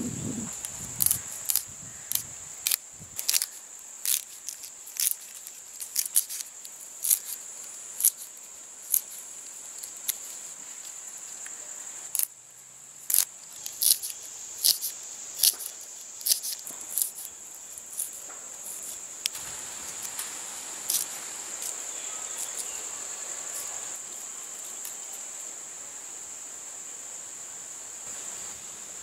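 Knife blade snipping fresh curry leaves pressed against the thumb, a crisp cut about every half second to a second, with a short pause in the middle, stopping about three quarters of the way through. A steady high insect trill, crickets, runs underneath.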